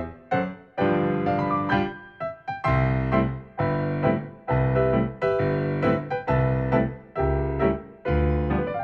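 Piano playing slow chords, each struck about once a second and left to ring and die away.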